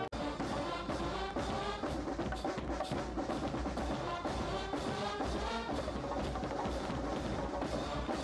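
Military brass band playing a march with a steady drumbeat under the brass. The sound cuts out for an instant just after the start, then the band carries on.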